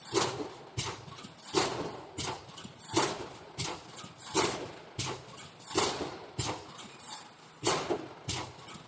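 Wire mesh welding machine cycling: regular mechanical clanks, a strong strike followed by a lighter one, repeating about every second and a half.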